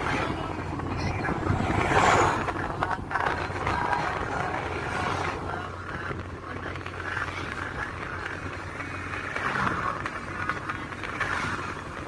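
Steady road and engine noise of a moving vehicle on a highway, with louder swells about two seconds in and again near the end.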